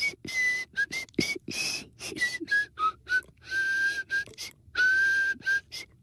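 An old man whistling a slow, breathy tune through pursed lips, in a string of held notes that step up and down in pitch, with short gaps between them and two longer notes past the middle.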